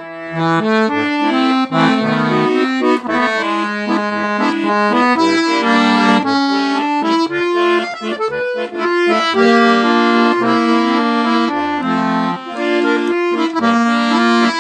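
Instrumental break of a song: a quick, busy melody over bass notes, with no singing.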